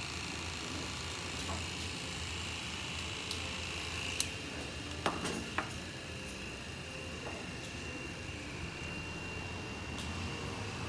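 Steady electric machine hum with a thin high whine over it, and three sharp clicks about four to six seconds in.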